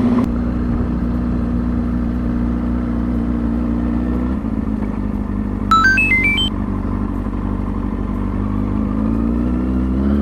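2003 Kawasaki ZX-6R 636 inline-four engine running steadily under way, its note changing about four seconds in and climbing as it revs up near the end. About six seconds in comes a brief, loud run of electronic beeps stepping up in pitch.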